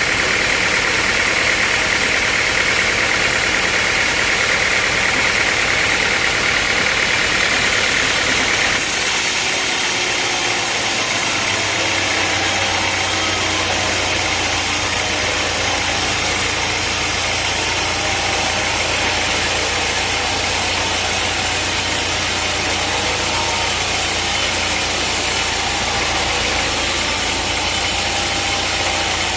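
A sawmill's engine running steadily. Its sound changes abruptly about nine seconds in, and a steady low hum joins it a few seconds later.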